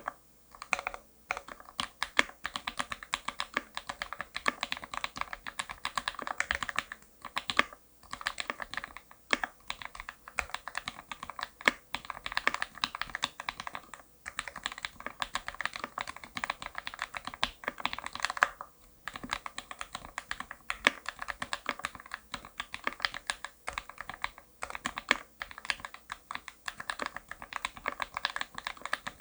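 Fast typing on a custom 65% mechanical keyboard with lubed Gateron Linjär linear switches in an aluminium plate and GMK keycaps: a rapid run of keystroke clacks with a few short pauses.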